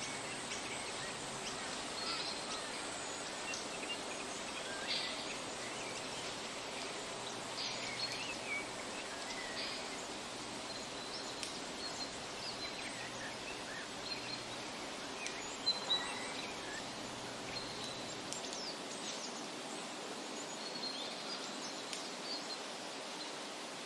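Steady outdoor background hiss with scattered short, high bird chirps, two of them briefly louder a little past the middle.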